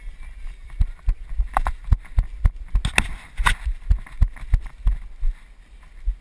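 Running footsteps heard through a body-worn GoPro: an even run of deep thumps, about three a second, as the camera jolts with each stride, stopping about five seconds in.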